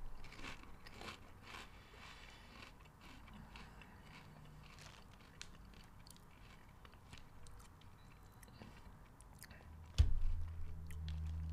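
A person chewing a crunchy Lay's potato chip close to the microphone: a run of crisp crunches, loudest in the first couple of seconds, then fainter and sparser. A sudden low thump about ten seconds in, followed by a low hum.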